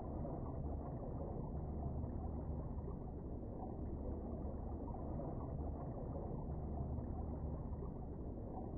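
Steady, muffled underwater rumble with a low hum beneath it, heard through a submerged camera's waterproof housing.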